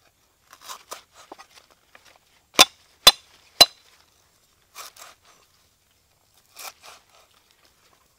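Three sharp knocks about half a second apart as a cleaver comes down on lemongrass stalks on a round wooden chopping block, splitting them. Softer rustling and tapping as the stalks are handled before and after.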